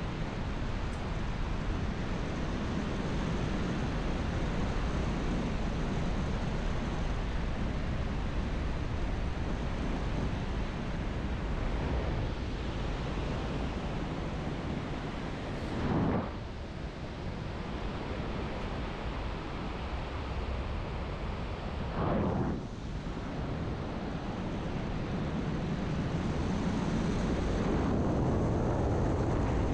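Steady rush of wind on a GoPro's microphone in paragliding flight, with two brief louder whooshes, one about halfway through and another some six seconds later.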